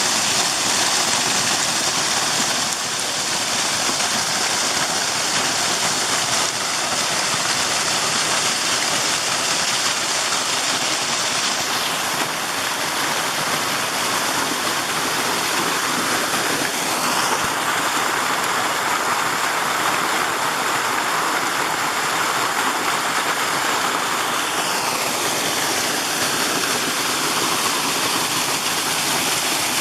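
Mountain creek rushing, a steady, loud wash of moving water. The balance of the sound shifts a few times, brighter and hissier in places and fuller in the middle range in others.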